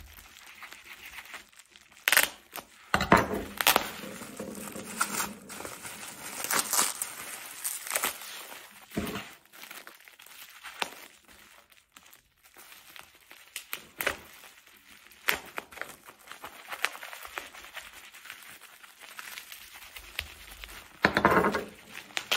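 Brown paper and bubble wrap being crumpled and torn off by hand to unwrap a glass jar: irregular crackling rustles with louder bursts now and then.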